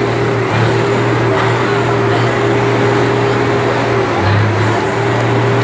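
Diesel semi-truck engine held at high revs while pouring black smoke, a loud steady drone that dips briefly about four seconds in and then comes back up.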